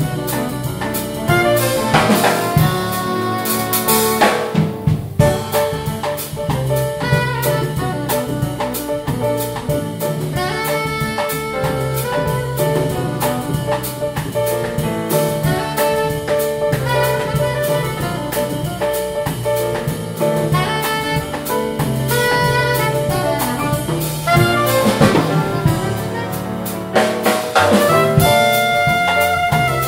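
Jazz quartet playing: saxophone over piano, double bass and drum kit, with a cymbal crash about two seconds in and another late on.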